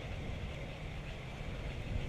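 Wind buffeting the microphone: a steady, flickering low rumble.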